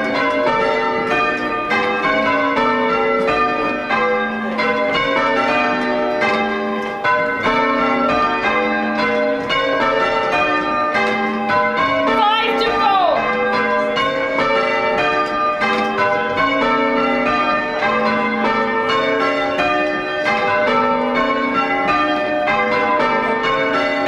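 Church tower bells rung in changes on hand-pulled ropes, heard from the ringing chamber below: a continuous run of bell strikes at different pitches, each bell sounding in turn in an unbroken rhythm.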